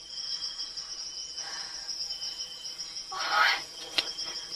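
Steady high chirring of insects in a forest ambience, with a short burst of noise a little past three seconds in and a sharp click at about four seconds.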